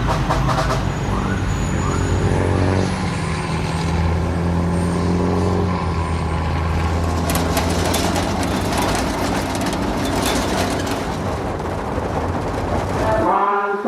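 A vehicle engine running steadily with a deep low hum amid traffic, with voices early on and rattling clicks in the middle. It cuts abruptly to chanting just before the end.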